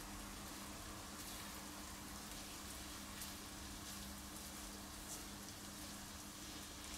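Diced onion and garlic sautéing in butter in a frying pan, sizzling faintly and steadily with a few light crackles.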